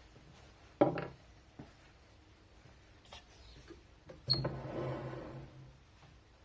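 Two sharp knocks of objects being handled and set down, one about a second in and a louder one midway. The second is followed by a rattle that dies away over about a second and a half.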